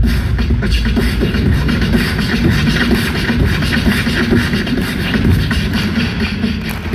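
Live music through an arena sound system, a fast and busy percussive beat with vocal sounds over it, heard from the audience seats.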